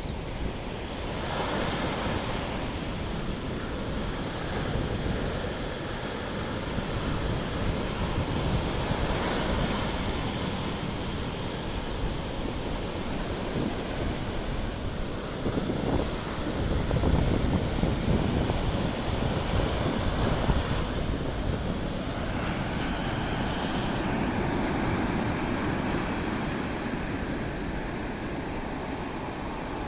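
Sea surf washing onto the beach in waves that swell and ease, with wind buffeting the microphone.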